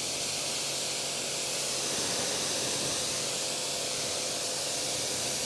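Pressure washer jet spraying water onto a car's windscreen and roof, an even steady hiss, with a faint steady hum underneath.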